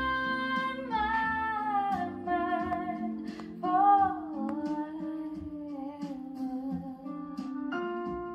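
Recorded music played over Xavian XN125 MK2 bookshelf speakers: a woman singing long, gliding notes over acoustic guitar accompaniment.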